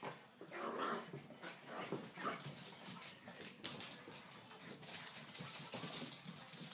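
Puppies whimpering and yipping in short calls as they play, with many quick clicks and scuffles in the second half.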